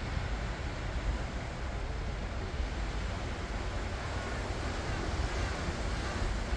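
Sea waves washing continuously onto the shore, with wind noise on the microphone. A few faint gliding high chirps come in near the end.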